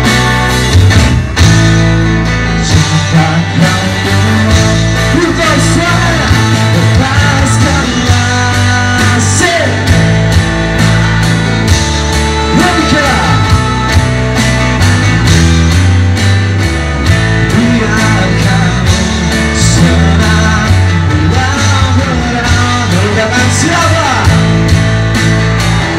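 Live pop-rock band playing a slow song: a male lead vocal over electric guitar and a steady drum beat.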